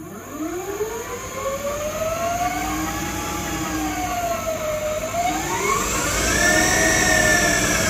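Electric Austin Mini conversion's drive motor and drivetrain whining as throttle spins the front wheel freely off the ground. The pitch rises, sags around five seconds in as the throttle eases, then climbs to its highest and holds, over a steady high electrical tone.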